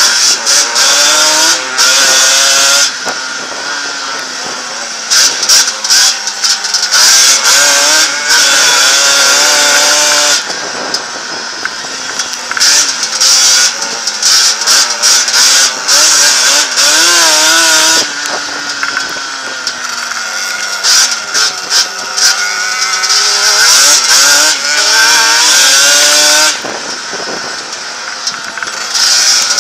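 Yamaha Banshee's twin-cylinder two-stroke engine racing laps: loud at full throttle for several seconds, then easing off with the pitch sliding down and wavering, before opening up again. The cycle repeats about every eight seconds.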